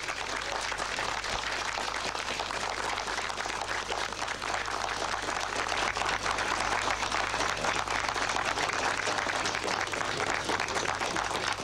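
Crowd applauding: a steady, dense patter of hand claps.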